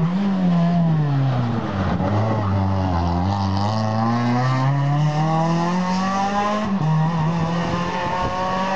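Rally car engine slowing as it brakes and downshifts into the hairpin, its pitch falling for about two seconds. It then accelerates out with a steady rising note for several seconds, and there is a gearshift near the end after which the note holds.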